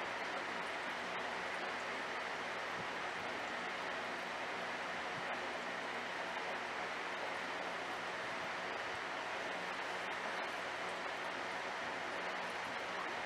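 Steady rushing hiss of aquarium water flow from the tank's filtration, with a faint low mechanical hum beneath.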